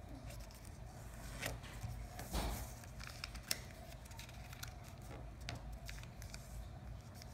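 A sheet of origami paper being folded and creased by hand, with faint rustling and a few short crinkles, the longest about two and a half seconds in and a sharp crackle about a second later.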